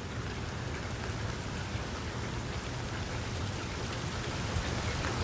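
Steady rain falling, with scattered individual drop ticks over a low, steady rumble.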